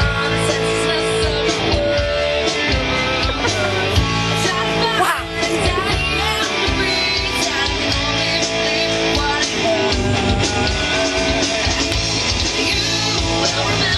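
Rock music: a loud punk-rock-style song with guitars, drums and singing.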